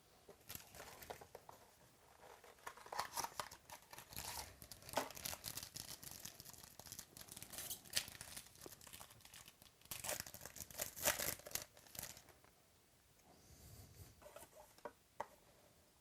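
Trading card pack wrapper being torn open and crinkled, with cards shuffled and handled, in irregular crackling rustles that die down about three-quarters of the way through.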